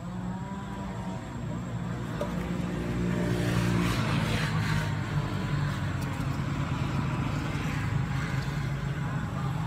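A motor vehicle engine running steadily, growing louder about three to four seconds in.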